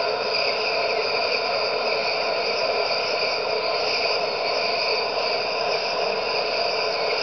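Dense, steady night chorus of calling animals from a marsh, frogs and insects layered at several pitches at once, unchanging throughout.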